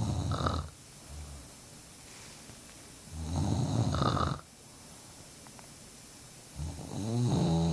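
A woman snoring loudly in her sleep: three rasping snores, each about a second long, coming roughly every three and a half seconds. The last snore has a clearer pitched, buzzing tone.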